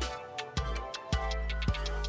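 Background music with a steady beat of low thumps about twice a second over a bass line.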